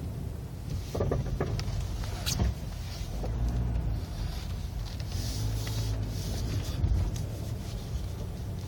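Nissan Versa making a clicking noise: several sharp, irregularly spaced clicks over a steady low rumble from the car.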